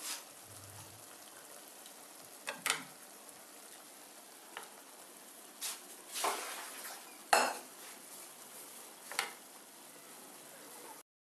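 Thick tomato gravy sizzling steadily in a metal kadai while a steel spoon stirs it, scraping and clicking against the pan several times. The loudest knock comes about seven seconds in, and the sound cuts off abruptly near the end.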